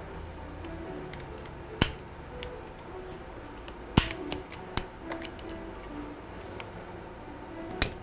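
Quiet background music, with sharp metal clicks and taps of a small screwdriver against an open laptop: one click, then a louder cluster about halfway through, and another click near the end.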